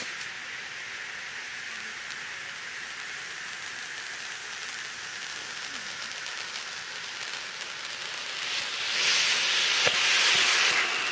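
Ground fireworks burning with a steady hiss: red flares and a lettered lance-work set piece, then fountains (gerbs) spraying sparks, which make the hiss swell much louder and brighter near the end. A short sharp pop at the very start and another near the end.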